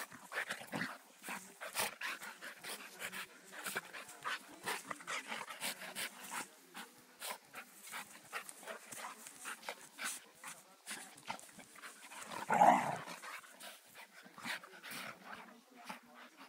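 A Brittany spaniel and a golden retriever play-fighting: panting with many quick, irregular clicks and scuffles of mouthing and jostling, and one loud short vocal sound from a dog about twelve seconds in.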